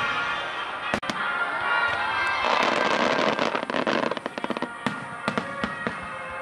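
Aerial fireworks shells bursting over music: a sharp bang about a second in, then a dense run of crackling reports lasting a couple of seconds, and a few scattered cracks near the end.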